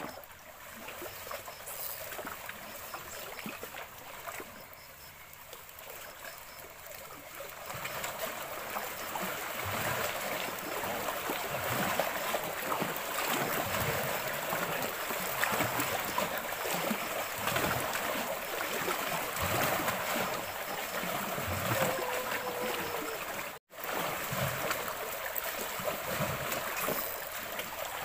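Lake water lapping and splashing against the shore rocks: a steady watery hiss that grows louder about a third of the way in, with a brief dropout near the end.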